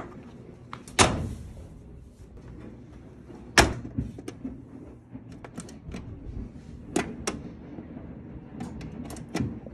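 Two loud clunks from a Speed Queen commercial washer's lid, about a second in and again a few seconds later, then lighter clicks as its controls are set, over a steady low hum.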